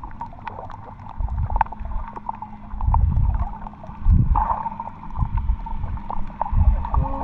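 Underwater sound picked up by a camera held below the surface while snorkelling: muffled low rumbles and water surges swelling every second or so, over a steady low hum.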